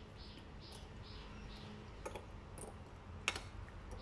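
Metal spoon stirring a cornstarch, sugar and water slurry in a ceramic bowl: faint, even scraping strokes about twice a second, with two light clinks of spoon on bowl, the sharper one near the end.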